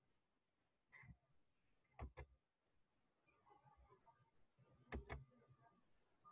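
Faint computer mouse clicks over near silence: a single click, then two quick pairs of clicks about three seconds apart.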